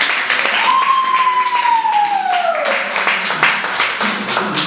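Audience applauding, with one long cheer gliding down in pitch over about two seconds near the start.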